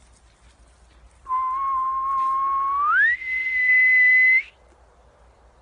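A long whistle calling the dogs back: a steady note held for about two seconds that jumps up an octave, holds again and then stops.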